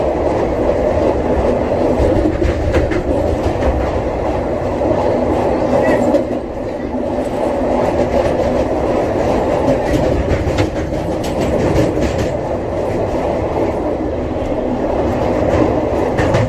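Passenger train running along the track: a loud steady rumble with scattered clicks of wheels over the rails.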